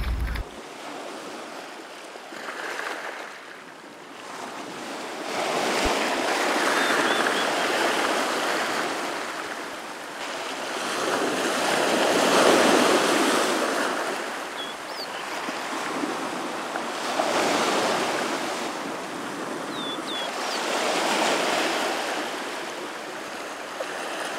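Ocean surf breaking on a black sand beach, the wash of the waves swelling and falling back every few seconds.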